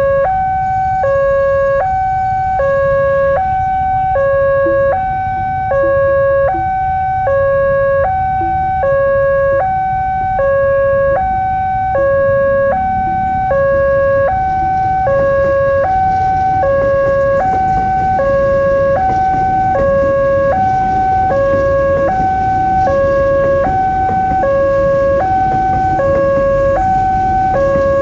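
Railway level-crossing warning alarm sounding, alternating between a low and a high electronic tone about every 0.8 s. From about halfway in, a KRL commuter electric train (JR 205 series) approaches and passes through the crossing, adding rumbling wheel and running noise under the alarm.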